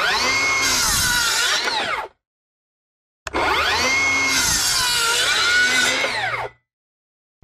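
Circular saw cutting through old timber twice, about a second apart: each time the motor's whine sags in pitch as the blade loads up in the wood and rises again as it frees. The older timber is swollen too thick to cut through in one pass, so it is cut from one side and then flipped for a relief cut.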